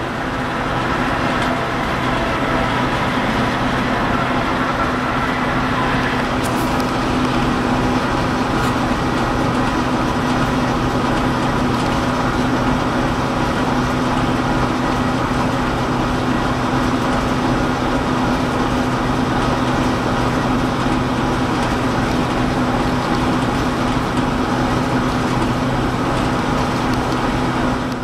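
Loud, steady rush of blizzard wind and blowing snow with a constant low hum, as an electric commuter train passes along the snow-covered line.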